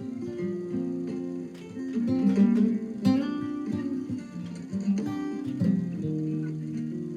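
Acoustic guitar music, strummed chords and picked bass notes, in the instrumental opening of a country-folk song before the singing comes in.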